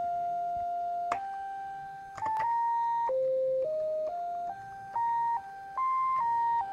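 Arduino-based Mozzi digital synthesizer played one note at a time from a keyboard: a sustained electronic tone that steps up and down through a short melody, each note running straight into the next. Faint clicks come at some of the note changes.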